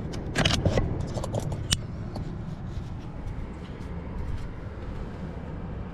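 Handling noise as a camera is taken off its mount: a quick run of clicks and rustles in the first two seconds, then a steady low rumble.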